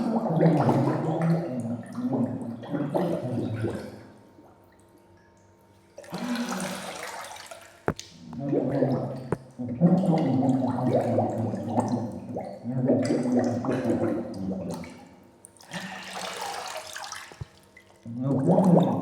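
A person's voice making wordless sounds, broken by two short bursts of hiss, one about six seconds in and one near the end.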